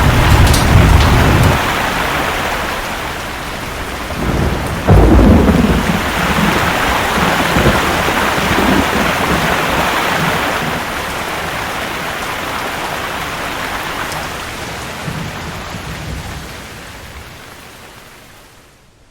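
Thunderstorm with heavy rain: steady rain hiss under a low rumble of thunder, a sudden loud thunderclap about five seconds in followed by rolling rumbles, then the rain fades away near the end.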